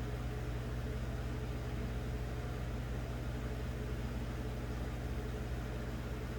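Steady low hum with a hiss behind it, unchanging, with no knocks or clicks.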